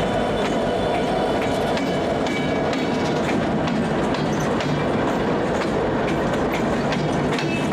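Freight train of single-stack container cars rolling past, with a steady loud rumble and repeated clicks of wheels over the rail joints. A few faint high wheel squeals run through it.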